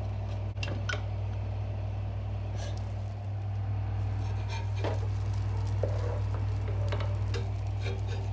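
A steady low hum with a few light clicks and knocks as the lid of an aluminium pressure cooker is unlocked and lifted off, then a wooden ladle scrapes and lifts the cooked rice inside the pot.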